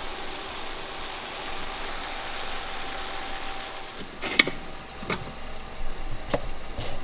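Ground beef sizzling steadily in a stainless steel frying pan, over a faint steady hum. From about four seconds in, a few sharp clicks and knocks cut through.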